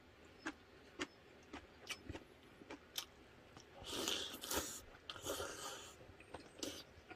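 A person eating beef hangover soup with a metal spoon: faint chewing with small mouth clicks about twice a second, then a longer slurp of broth from the spoon about four seconds in.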